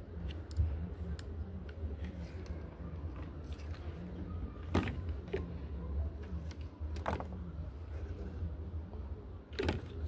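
Plastic washing-machine parts, a drain pump and then a pressure switch, being handled and set down on a wooden board: a few sharp clacks and knocks over a steady low rumble.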